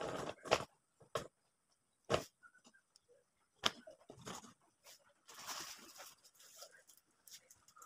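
Paper cups being picked up and set down upside down on a tabletop: a few light taps and a longer rustle a little past the middle.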